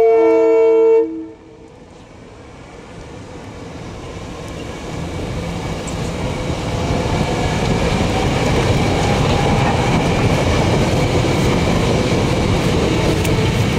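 SEPTA Regional Rail electric train sounding its horn, a loud multi-note chord that cuts off about a second in. The train then rolls through the crossing, its rumble on the rails building over several seconds and then holding steady as the cars pass.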